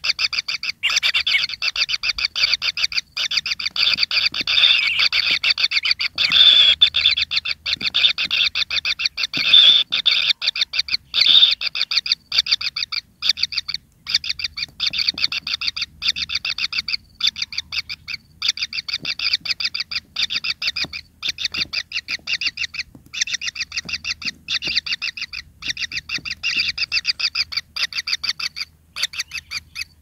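Kingfisher nestlings giving a fast, continuous train of short, shrill begging calls, many a second with only brief pauses. Nestlings at the pin-feather stage, calling for food.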